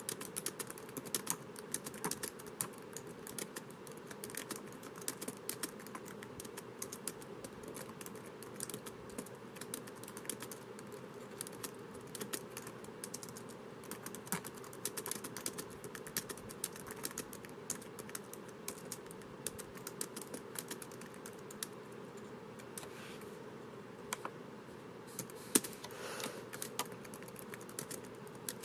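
Typing on a laptop keyboard: an uneven, continuous patter of key clicks, with one sharper, louder click near the end.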